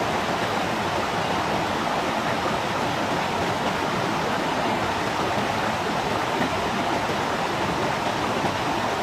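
Steady, even rushing noise that holds at one level throughout.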